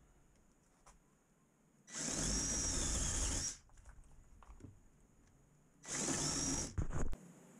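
Cordless drill boring into a pressure-treated pine board in two runs, about a second and a half and then about a second long, with a thin high motor whine under each, cutting recesses for lag bolt washers. A short knock follows just after the second run.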